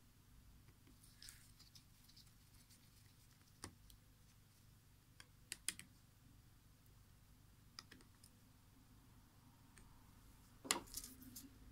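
Faint, scattered small clicks and ticks of a precision screwdriver working inside the plastic lens barrel of a Microsoft LifeCam Cinema webcam, with a quick pair of clicks around the middle and the sharpest click near the end.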